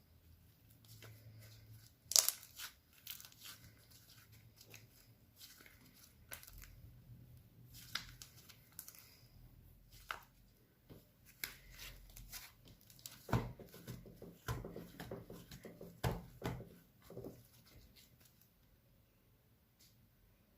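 Clear slime being worked by hand, giving irregular sticky clicks and crackles, with a sharp snap about two seconds in and a run of louder ones in the second half.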